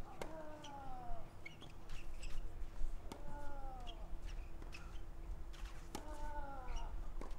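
Tennis rally: a sharp racket strike on the ball about every three seconds, each followed by a player's grunt that falls in pitch, with a few lighter knocks between the strikes.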